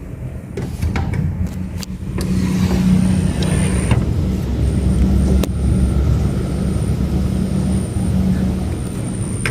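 Panasonic CS-YN7WKJ air conditioner running, a loud low rumble of its fan and airflow that builds over the first two seconds and then holds steady. A few sharp clicks sound in the first two seconds and once about halfway.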